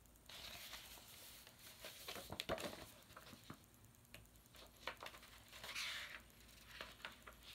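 Faint paper rustling and a few soft taps as a picture book is handled and lowered.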